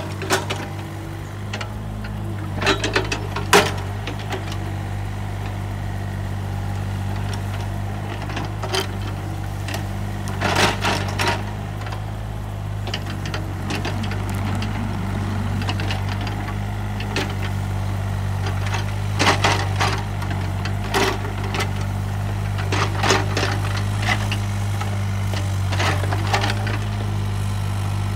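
Takeuchi TB135 mini excavator's diesel engine running steadily while it works, with several short bursts of clanking and crackling from the bucket dropping and scooping brush and debris.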